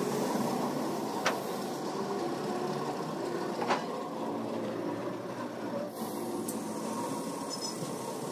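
Steady mechanical hum of workshop machinery, with two sharp clicks, one about a second in and one nearly four seconds in.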